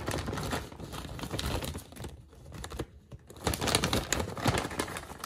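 Plastic bag of dried cranberries crinkling and rustling as it is shaken out over the bowl, in quick irregular clicks. It goes quiet about two seconds in, then starts again for the rest of the shaking.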